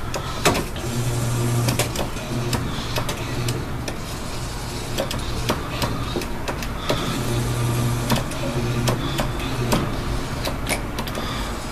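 Claw machine's gantry motor whirring in short runs as the claw is moved into position, once about a second in and again near eight seconds in, with scattered sharp clicks and knocks throughout.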